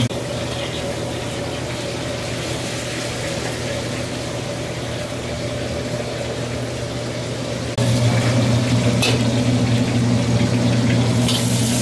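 A steady mechanical hum with a low, even tone over a watery wash. It drops abruptly at the start and comes back louder about 8 seconds in.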